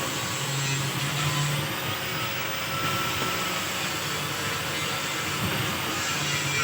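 Steady mechanical noise with a low hum: a continuous hiss and rush under a droning hum that fades out about two seconds in and comes back near the end.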